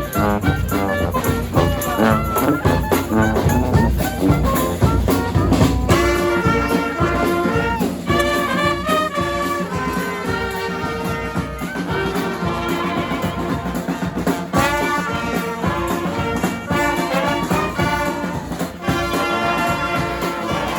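New Orleans–style street brass band playing live: trumpets and trombones over drums, with the horns coming in fuller about six seconds in.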